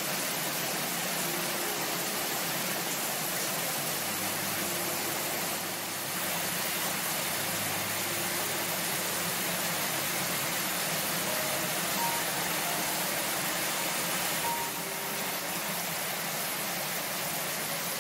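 Heavy monsoon rain pouring steadily onto trees and garden plants: a dense, even hiss. A few faint, soft held musical notes sit beneath it.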